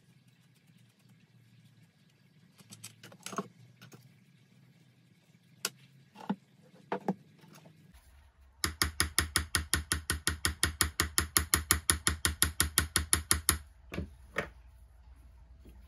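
Rapid, even mechanical clicking, about seven clicks a second for about five seconds, starting near the middle. Before it come a few light taps and scrapes, with two more taps after it.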